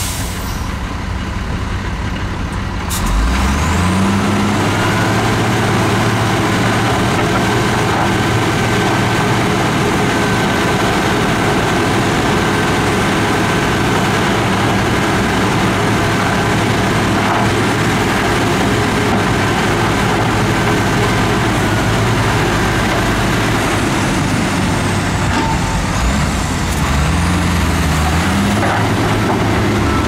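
Heavy diesel engine of earthmoving machinery revving up about three seconds in, then running steadily at high revs, and revving up again near the end.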